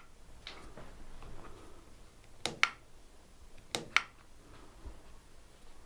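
SRAM Red eTap wireless electronic derailleur shifting: a quick double click with a short motor whir, twice, a little over a second apart.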